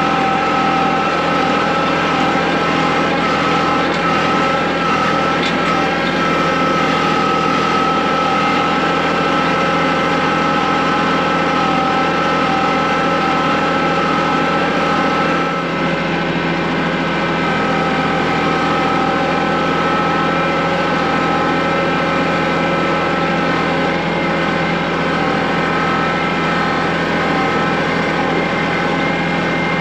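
Tractor engine running steadily at a constant speed, with a brief slight dip about halfway through.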